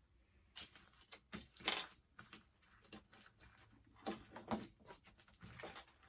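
Faint clicks, taps and crinkles of plastic and cardboard doll packaging being handled, a rapid, irregular run of small sharp sounds starting about half a second in.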